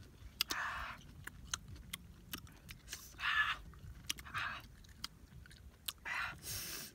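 A person biting and chewing crunchy raw fruit, with many sharp crunching clicks and a few short breathy mouth noises between bites.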